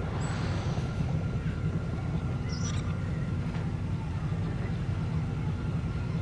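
Sci-fi ambience bed: a steady low mechanical hum with a thin steady whine above it. A short hiss rises in the first second, and a brief high chirp sounds a little under three seconds in.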